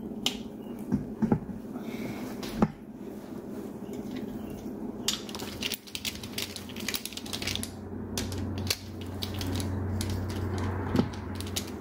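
Main bearing cap bolts on a Mazda 1.8 BP engine block being loosened with a breaker bar and socket wrench: a few sharp metallic knocks as the bolts break free, then a run of quick ratchet clicks as they are backed out. A low steady hum comes in about two-thirds of the way through.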